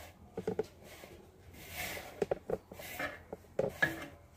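Hands mixing a dry mixture of ground roti crumbs, semolina and sugar in a brass plate: soft grainy swishing, with a few short light clicks against the plate.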